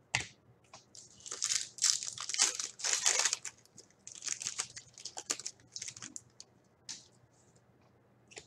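Wrapper of a 2017-18 Upper Deck Trilogy hockey card pack being torn open and crinkled in the hands: irregular bursts of crackling, heaviest in the first half and thinning to a few scattered crackles near the end.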